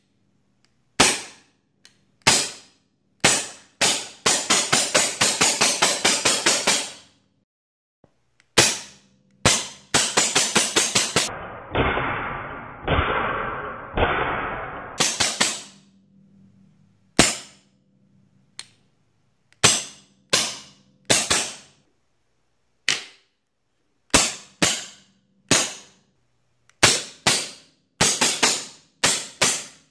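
FX Monsoon semi-automatic PCP air rifle firing over and over, its self-cycling action letting off each shot as fast as the trigger is pulled. There are single cracks, then quick strings of about four shots a second. Near the middle comes a duller, denser rattle lasting about four seconds.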